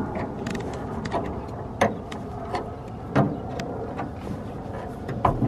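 A small flathead screwdriver prying at the metal retaining clip on the ball-socket end of a BMW E90 hood strut, making irregular sharp clicks and scrapes over a steady background noise.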